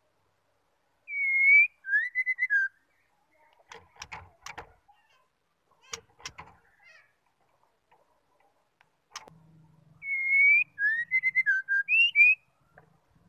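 Female white-rumped shama giving two short, clear whistled phrases, each a downslurred whistle followed by a few quick notes, the first about a second in and the second about ten seconds in. Between them are a few sharp taps and rustles as the bird flutters and hops about its cage.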